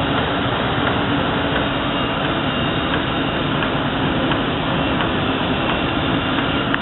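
Automatic profile sandblasting cabinet running: a steady rush of compressed air blasting corundum grit through the nozzles, with a low steady hum underneath.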